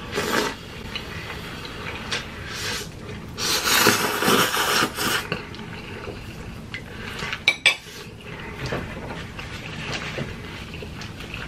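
Eating sounds: spicy ramen noodles slurped off a spoon, with chopsticks and spoon clinking against the dishes. There is a long slurp about four seconds in and two sharp clinks a few seconds later.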